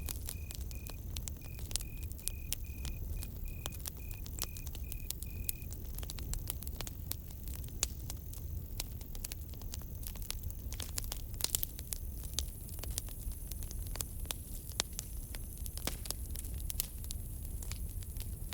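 Campfire crackling: dense sharp pops and snaps over a steady low rumble of burning wood. For the first six seconds or so, a cricket chirps at one steady pitch, about two to three chirps a second.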